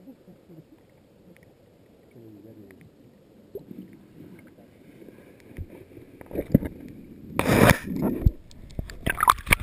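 Underwater sound picked up through a GoPro HD2's standard housing: a low muffled water rumble with faint clicks. From about six seconds in come knocks and loud sloshing, splashing bursts as the camera is moved, loudest near the end.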